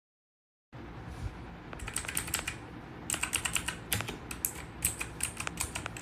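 Typing on an RK860 (RK100) 100-key hot-swappable mechanical keyboard: rapid, uneven key clicks in quick runs, starting under a second in and growing denser about two seconds in.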